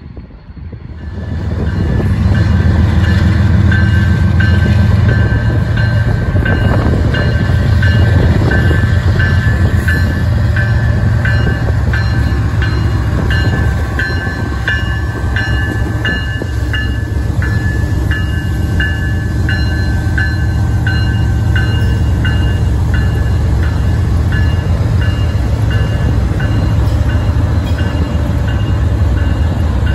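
Freight train's diesel locomotives passing close by: a deep engine rumble swells in about a second in and stays heavy, with a bell ringing steadily about twice a second.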